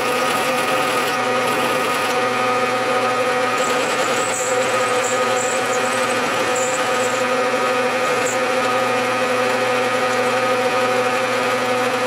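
Bridgeport milling machine running, its quarter-inch end mill plunging through a pre-drilled hole and cutting a slot in a 3/16-inch metal plate. A steady hum with a constant whine, and faint high chirps from the cut coming and going in the middle.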